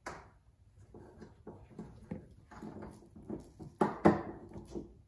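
Small plastic clicks, knocks and rustling as a side marker light is worked into its opening in a Corvette's rear quarter panel, with two sharper knocks close together about four seconds in.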